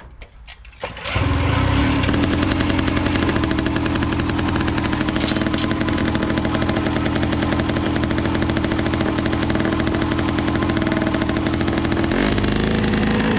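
Tuned 60cc reed-valve two-stroke single of a Jawa Babetta 207 moped with an expansion-chamber pipe, started about a second in and then running steadily at a constant speed. Its note shifts near the end.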